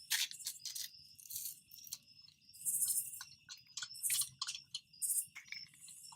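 Crickets chirping steadily, with irregular short clicks and scraping hisses from a lug wrench working the lug nuts off a raised wheel.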